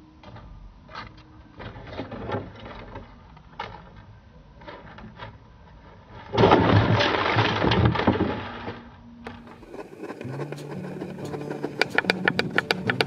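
Scattered light taps and clicks, then a loud crackling clatter of a parakeet scrabbling inside a plastic-bottle trap for about two and a half seconds. Music with a regular beat starts near the end.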